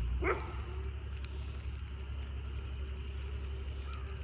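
A dog barks once, sharply, about a third of a second in, over a steady low rumble of wind and bicycle tyres on pavement.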